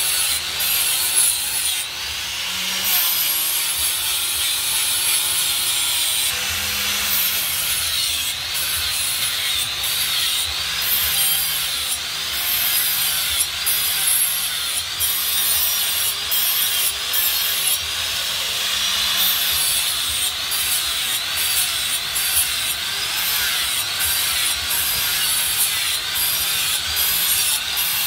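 Handheld electric angle grinder grinding the edges of steel knife blades: a steady grinding rasp over the motor's whine, whose pitch dips and recovers about once a second.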